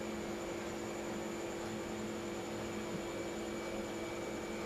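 Room tone: a faint steady hum and hiss with a few thin constant tones and no other events.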